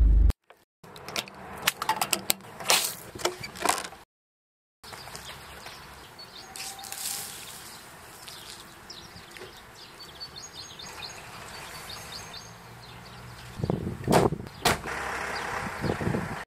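A run of clicks and knocks, then a steady background hiss with birds chirping, and a few sharp knocks near the end.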